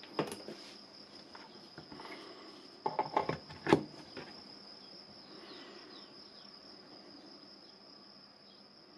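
A 12 V lithium-ion drill battery pack being handled and pushed into an AEG charger: a knock near the start, then a quick run of plastic knocks about three seconds in, the loudest as the pack seats. A steady high-pitched whine runs underneath.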